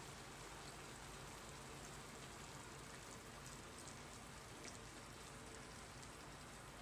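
Faint steady sizzle with scattered small crackles from pork belly cooking in a pan as soy sauce is poured over it.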